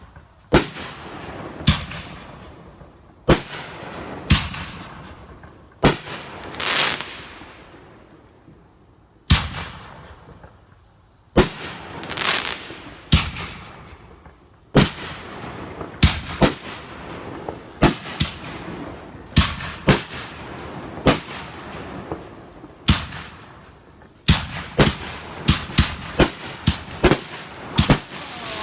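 Aerial fireworks bursting overhead: a long run of sharp, irregularly spaced bangs, some followed by a fizzing crackle, closing in a quicker flurry of bangs near the end.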